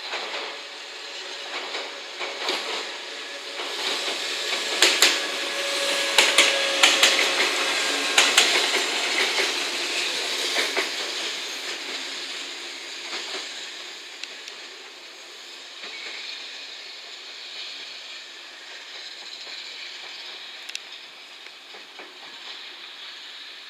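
JNR 443 series electric test car KuMoYa 443 running past on the freight-terminal tracks, its wheels clacking sharply over rail joints and points, loudest from about five to eleven seconds in. Afterwards the rolling noise settles to a lower steady rumble and hiss as the train draws away.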